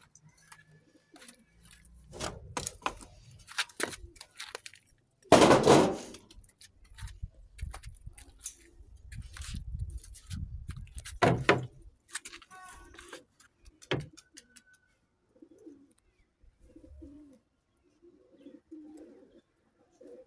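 Domestic pigeons cooing softly, most clearly in the second half. Scattered clicks and short rustling bursts come through the first twelve seconds, the loudest a sudden burst about five seconds in.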